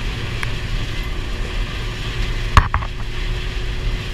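New Holland TR70 combine running steadily while harvesting corn, with a sharp knock about two and a half seconds in and two lighter clicks right after it.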